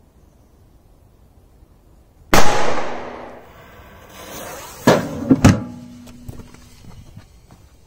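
A grenade-type firecracker goes off at an old gas cooker: one loud bang a couple of seconds in, its sound trailing off over about a second. A few sharp knocks follow close together a few seconds later.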